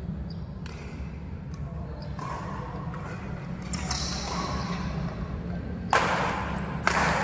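Badminton rackets striking a shuttlecock in a doubles rally: a few light hits, then two loud sharp strikes about a second apart near the end, over a steady low hum.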